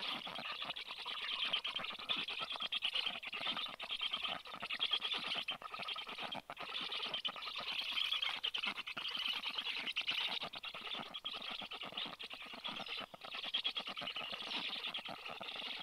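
Black stork nestlings begging at the nest: a fast, continuous chatter of many calls as the chicks crowd around the adult.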